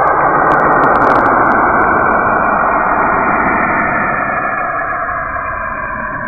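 Saturn's radio emissions recorded by a NASA spacecraft and converted to sound: a dense, eerie hissing noise with faint drifting tones and a few clicks about a second in, slowly fading near the end.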